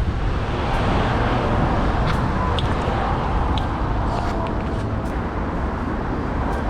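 Steady road traffic noise, the rumble of cars on a street.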